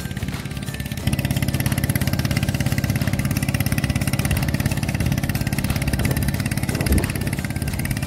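Small engine of a lotus-field tilling machine running steadily with a fast, even chug while it churns up the flooded field. It gets louder about a second in.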